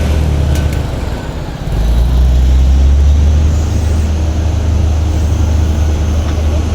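Bulldozer's diesel engine running with a deep, steady rumble. It eases off about a second in and builds back up strongly just before two seconds, then holds under load.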